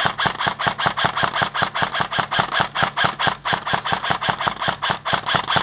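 Airsoft electric AR-style rifle firing a long continuous full-auto burst, a steady rattle of about seven shots a second.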